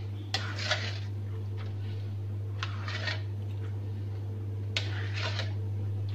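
Spatula stirring rice through coconut milk in a wok, in three pairs of short scraping strokes about two seconds apart, over a steady low hum. This is the aron stage, the rice par-cooked in its coconut liquid and stirred constantly so it doesn't stick to the wok.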